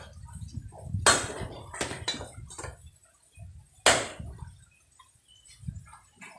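Cleaver chopping thin branches for firewood on a round wooden chopping block: sharp chops, the loudest about a second in and just before four seconds, with lighter knocks between.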